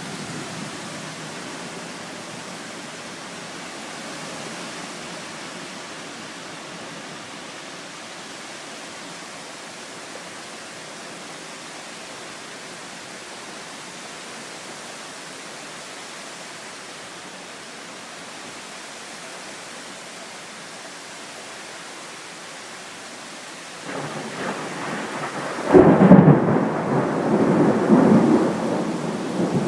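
Heavy rain pouring steadily in a thunderstorm. Near the end a loud clap of thunder breaks, then rumbles on for a few seconds.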